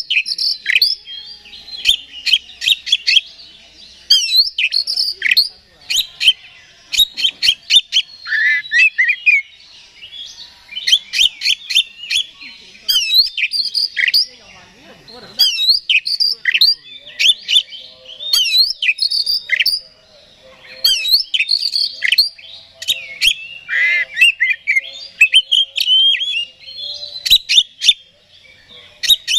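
Oriental magpie-robin singing its full, excited song: rapid runs of sharp whistles, clicks and down-slurred notes in bursts a second or two long, with short pauses between.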